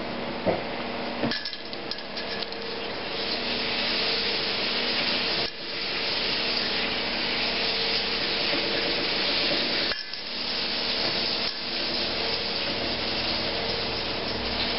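Potato cakes frying in hot oil: a steady sizzling hiss over a low hum, with a light knock about a second in.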